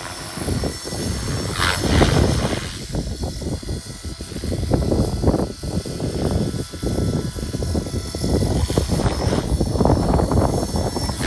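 Align T-Rex 470 electric RC helicopter running, its rotor blades whirring, with an uneven, buffeting noise that rises and falls throughout.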